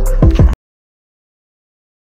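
Electronic background music with a drum beat that cuts off abruptly about half a second in, followed by dead silence.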